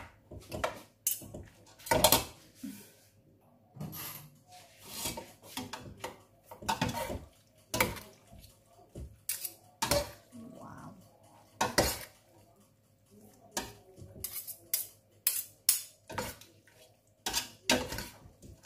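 Metal utensils clinking, knocking and scraping against a stainless steel pot as cooked pasta is stirred and mixed with cheese, in irregular knocks about one or two a second.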